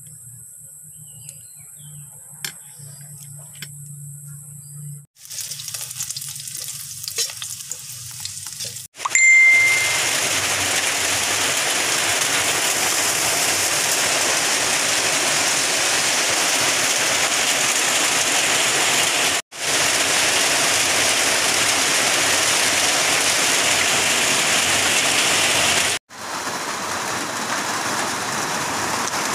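A few faint clicks from scissors working on the fish, then a loud steady hiss from a pot of coconut-milk stew boiling over a wood fire, starting with a short ding about nine seconds in.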